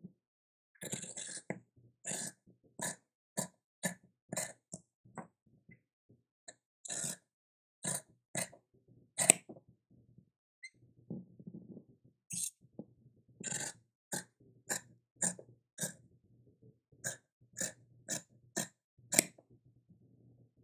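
Metal scissors snipping through fabric, short crisp cuts in irregular runs of about one or two a second, with a couple of brief pauses and one louder snip about nine seconds in.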